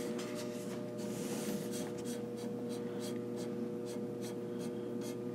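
Light clicks, about two or three a second, and a brief scrape about a second in, from the sliding weights of a balance-beam physician scale being nudged by hand to bring the beam into balance. A steady hum runs underneath.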